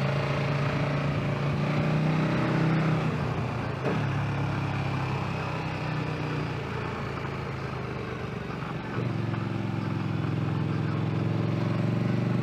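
Motorcycle engine running under way, heard from the rider's position with rushing wind noise. The engine note breaks briefly about four seconds in, then picks up louder about nine seconds in.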